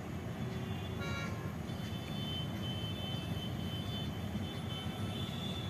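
Steady low rumble of a vehicle engine running, with a brief horn-like tone about a second in and a faint high steady whine from about two seconds on.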